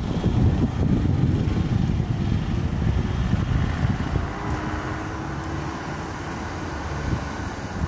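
Road traffic going by on a city street, loudest in the first few seconds and then easing.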